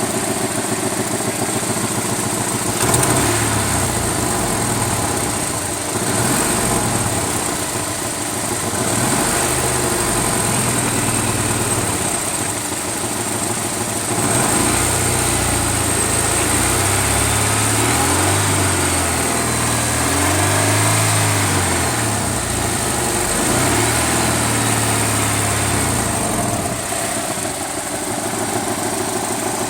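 Vehicle engine running with a ticking noise, its speed rising and falling gently a few times.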